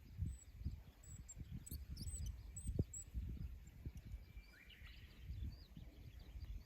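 Small birds chirping in short, high calls, with a sliding call about two-thirds of the way in, over irregular low rumbling gusts of wind on the microphone.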